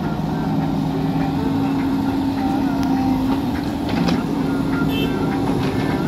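Diesel engines of a JCB 3DX backhoe loader and a tractor running steadily while the backhoe works, loading soil into the tractor's trailer.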